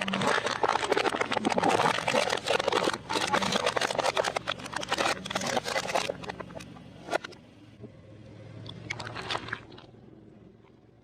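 A car tyre rolling over crunchy food and crushing it: a dense crackling crunch for about six seconds. It then quietens to a low engine hum, with a shorter crunch about nine seconds in.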